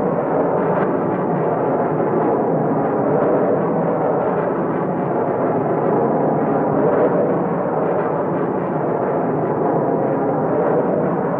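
Rocket engine running with a steady, dense rumble, dull and muffled with no highs, and no separate bangs or tones standing out.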